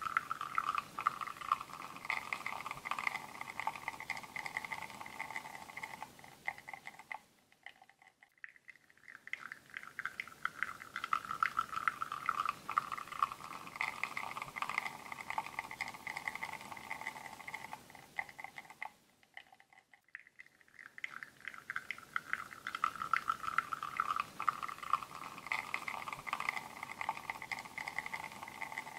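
Espresso running from a bottomless portafilter into a cup, a crackly trickling flow. It fades away twice for about two seconds before the flow starts up again.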